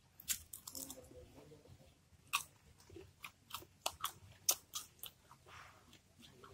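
Close-up crunchy chewing of raw young mango slices dipped in spicy rujak sauce, a string of sharp, crisp crunches a few per second.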